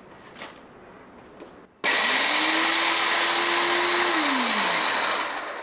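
An old Hamilton Beach micro mini food processor grinding graham crackers into crumbs. A few small handling clicks come first. About two seconds in the motor starts with a sudden whir, quickly rises to a steady hum and runs for about two seconds. Near the end its pitch falls and it fades out as the motor spins down.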